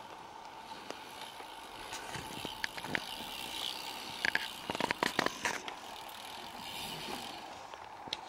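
A mountain bike passing on the course, its chain and frame clattering with a quick run of clicks and rattles about halfway through.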